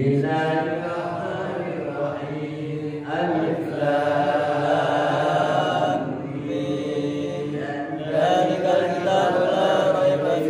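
A man reciting the Qur'an aloud in Arabic, chanted melodically over a microphone, in long held phrases with short pauses for breath between them.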